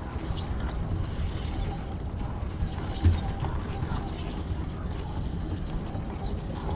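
Wind rumble on a bike-mounted action camera, with rattling and light creaking from a fixed-gear bicycle and its camera mount as the tyres roll over boardwalk deck boards; one sharper knock about three seconds in.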